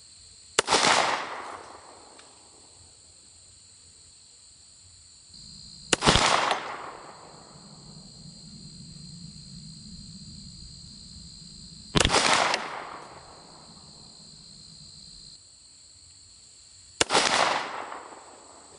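Four shots from a Smith & Wesson Model 52-2 semi-automatic target pistol firing .38 Special wadcutter reloads, spaced about five to six seconds apart. Each is a sharp crack followed by a short echo.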